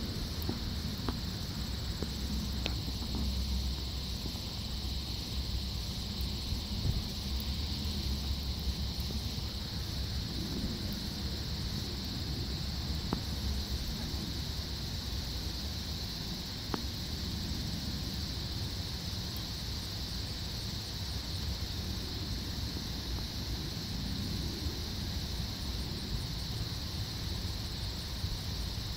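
Steady, high-pitched chorus of insects, with a low rumble underneath and a few faint ticks.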